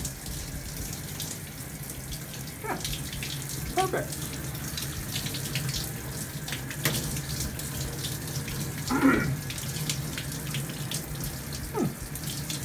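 Shower head spraying water steadily in a small tiled shower, with a few brief murmurs of a man's voice.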